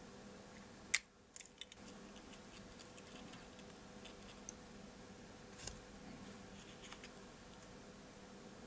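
Small clicks and taps of metal tweezers and a pry tool on the plastic lens unit of a Sony DSC-W830 compact camera as it is taken apart. One sharp click about a second in, a few lighter clicks just after it, then scattered faint ticks.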